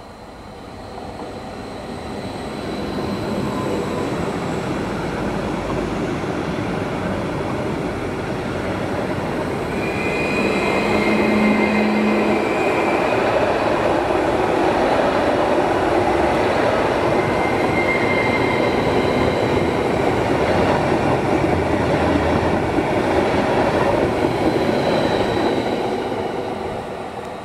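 Coupled Stadler FLIRT electric multiple units passing on the track. The rolling wheel-on-rail noise builds as the train approaches, stays loud through most of the pass and fades near the end. A few brief high-pitched whines rise over it partway through.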